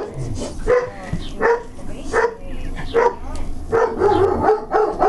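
A dog barking repeatedly: about nine short barks, spaced unevenly.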